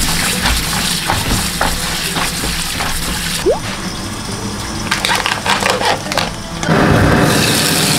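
Tap water running onto lettuce leaves as they are rinsed by hand, then a plastic food bag crinkling as it is handled. A loud steady rushing noise comes in near the end.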